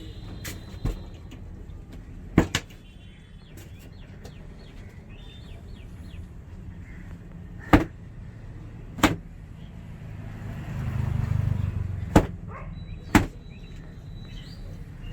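About eight sharp hand slaps from a barber's head massage, struck singly at uneven intervals over a low street-traffic rumble that swells for a couple of seconds past the middle.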